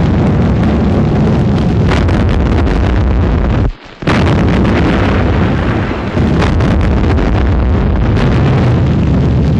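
Battle noise on an old film soundtrack: a dense, continuous din of shell explosions and artillery fire. The sound cuts out briefly about four seconds in, then resumes.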